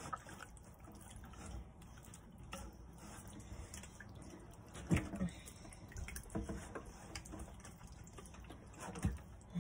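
Hands rubbing a wet seasoning marinade into a raw whole chicken in a stainless steel bowl: faint wet squishing and dripping. Two louder short sounds come about halfway through and near the end.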